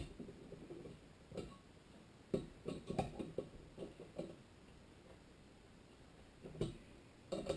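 Scattered small metal clicks and taps from a socket driver turning the connecting rod cap bolts on a bare small-engine crankshaft, with a quick run of clicks about three to four seconds in. The bolts are being run down on the rod cap over a strip of Plastigage before it is torqued for an oil-clearance check.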